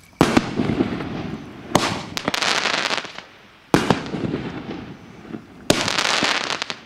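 Consumer fireworks cake firing 2-inch aerial shells: about five sharp bangs, one every second and a half to two seconds, each followed by about a second of fading hiss.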